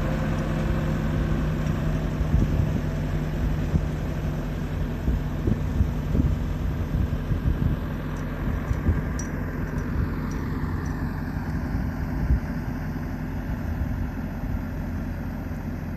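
A backhoe's diesel engine running steadily, its sound growing duller about ten seconds in.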